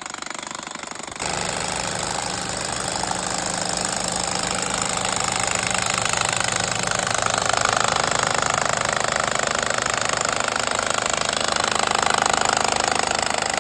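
Milwaukee impact wrench hammering continuously as it screws a Pylex steel pile into the ground. The rattle steps up in loudness about a second in, then runs steadily.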